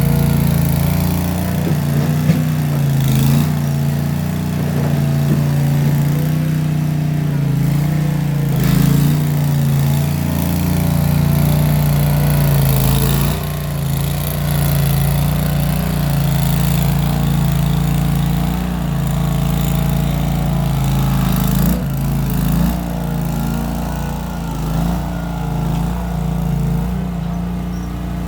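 Case 1816 skid steer's engine running steadily under work, exhaust through small round mufflers, its note shifting slightly up and down as it works.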